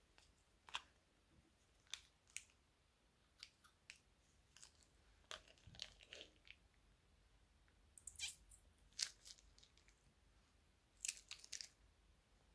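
Small plastic zip bag of blue slime squeezed and emptied by hand: faint, scattered crinkles and clicks of the plastic, with small wet pops of the slime as it is pressed out.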